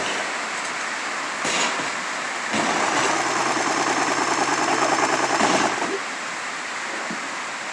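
A sewing machine runs in one stretch of about three seconds, starting about two and a half seconds in and stopping suddenly, its needle beating rapidly. Steady rain hisses underneath throughout, with a short knock about a second and a half in.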